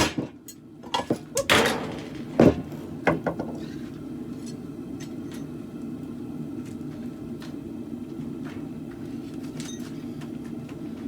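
A handful of sharp metal clanks and knocks in the first few seconds, from metal tools and the workpiece being handled at the forge, then a steady low rumble of the forge running.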